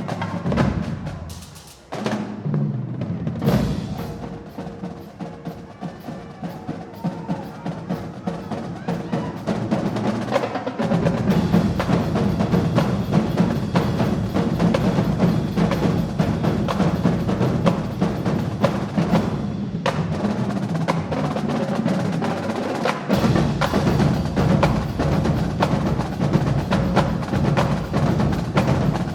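Marching drumline playing: rapid snare and tenor drum patterns, with a brief drop about two seconds in. The bass drums come in heavily about a third of the way through, drop out for a few seconds past the middle, then return with the full line.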